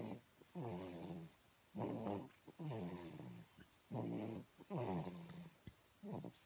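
Snoring: pitched snores coming in pairs, about one pair every two seconds, in a steady breathing rhythm.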